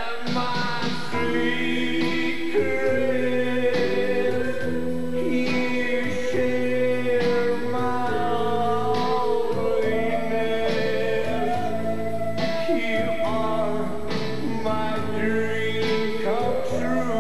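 A male singer performing a song with band accompaniment, with long held notes.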